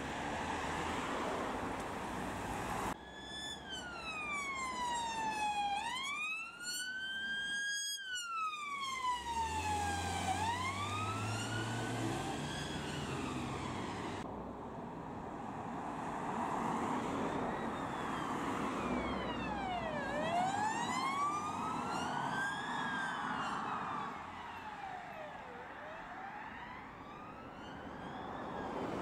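UK police sirens on a slow wail, each sweep rising and falling over a couple of seconds. A Ford Transit cell van is heard first, its engine revving up as it pulls away. After a cut comes a Vauxhall Astra patrol car's siren. Road traffic noise runs underneath.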